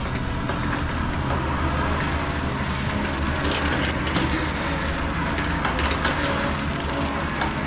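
Mini excavator engine running steadily under load while a hydraulic Rut brush cutter head chops through brush and grass, with a dense crackle of splintering stems over the engine.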